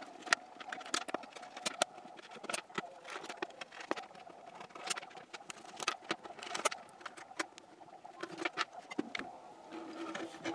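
Irregular small clicks and taps of a hand tool working the screws of a subwoofer's metal amplifier back plate as it is taken off, over a faint steady hum.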